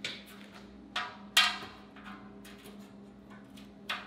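Four sharp knocks of a metal straightedge being handled against the steel drum of an old cement mixer. The loudest, a clank about a second and a half in, rings briefly.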